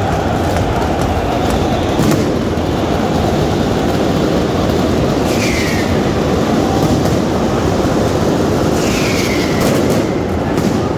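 Steady loud roar of a packed football stadium crowd in the stand, with two short falling whistles about five and nine seconds in.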